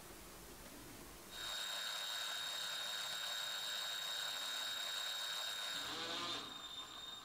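Cordless drill running steadily at low speed, spinning a wire rod with a lure on it so the epoxy resin coats it evenly. Its steady whine starts about a second in and winds down with a falling pitch near the end.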